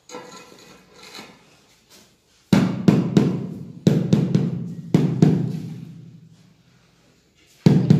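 Rubber mallet striking a marble floor tile to bed it into the mortar beneath and level it. From about two and a half seconds in come roughly seven heavy, dull thuds in quick groups of two or three, each with a short low ring that fades. One more blow lands near the end, after a pause.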